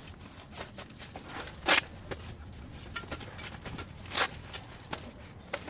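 Scattered clicks and rustles of things being handled, with two louder sharp knocks, one about a second and a half in and one about four seconds in.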